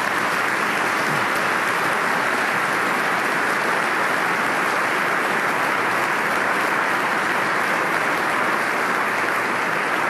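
A large audience applauding steadily, a dense even clapping.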